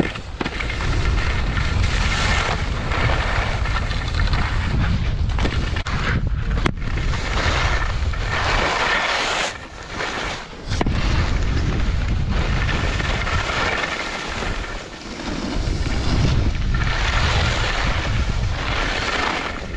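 Wind buffeting a GoPro Hero8's microphone while skiing fast downhill, mixed with skis scraping over hard-packed snow. The rushing noise drops briefly twice, and there is one sharp click about seven seconds in.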